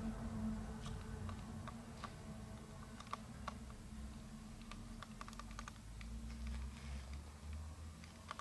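Faint, irregular light clicks and taps of footsteps on a wooden stage floor, over a low steady hum.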